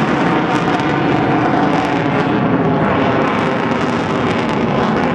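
Eurofighter Typhoon's twin EJ200 turbofan engines in afterburner: a loud, steady jet roar with a crackle running through it.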